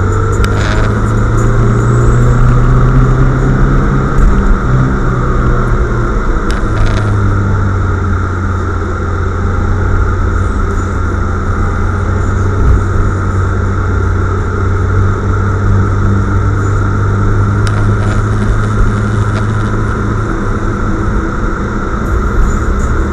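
Steady in-cabin driving noise of a car: a continuous low engine drone with tyre and road hiss on a wet, slushy road, and a few faint clicks.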